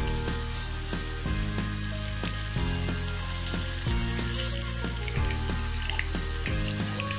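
Hot oil sizzling steadily as marinated fish steaks fry in a pan, with more pieces laid into the oil partway through. Background music with steady bass notes plays underneath.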